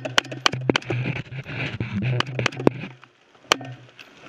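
Small-arms fire: irregular sharp cracks, about ten in the first three seconds and the loudest one about three and a half seconds in, over a low steady hum that stops near the three-second mark.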